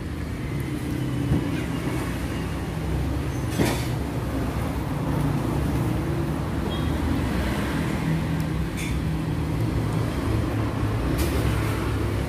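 Steady low rumble of motor traffic with an engine running nearby, its pitch drifting slowly, and a few light clicks on top.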